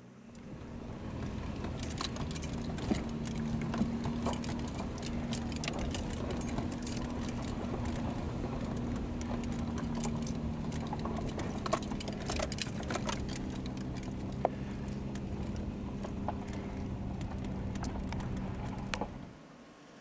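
Vehicle engine running steadily, heard from inside the cab while driving over a rough dirt road, with frequent clicks, knocks and rattles as it jolts over the bumps. It comes in about half a second in and cuts off suddenly near the end.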